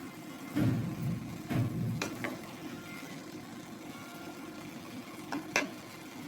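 A utensil stirring and scraping food in a pot, with two heavier strokes in the first two seconds and a few light clinks against the pot, over a faint steady sizzle.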